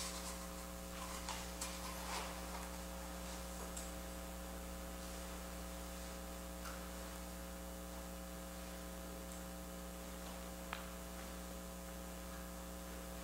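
Steady electrical mains hum, with a few faint rustles and knocks in the first couple of seconds and a single small click near the end.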